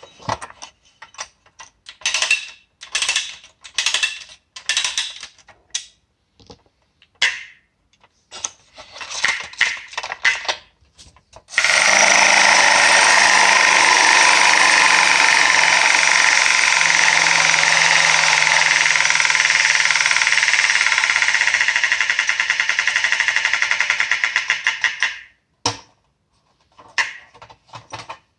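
Paya clockwork tin toy motorcycle: its spring motor is wound in a series of short ratcheting bursts, then released to run with a loud, steady mechanical rattle for about fourteen seconds. The rattle's low tone sinks slowly and turns into a slowing pulse as the spring runs down, followed by two brief rattles near the end.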